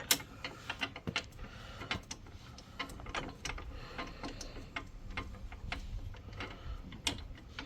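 Ratchet wrench clicking in short, uneven runs as a bolt with a nylock nut is snugged down on a hitch bike rack, with a few sharper metal clicks and knocks.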